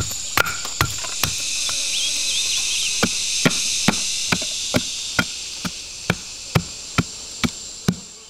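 Machete chopping a bamboo stake, sharp knocks about twice a second, over a steady high drone of insects that swells in the middle.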